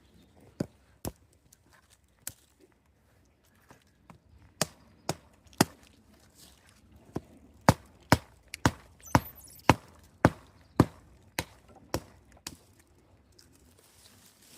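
Axe chopping into wood: sharp single strikes, a few scattered at first, then a steady run of blows about two a second from about seven seconds in.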